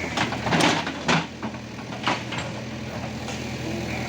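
A heavy vehicle's engine idling steadily, with a few sharp knocks or clanks in the first two seconds.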